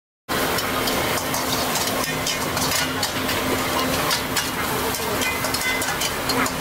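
Food being stir-fried in a steel wok over a gas burner: sizzling, with frequent clinks and scrapes of a metal spatula against the wok, over a steady low hum. The sound cuts in abruptly just after the start.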